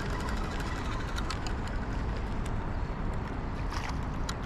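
Steady low outdoor rumble with small scattered clicks and taps over it.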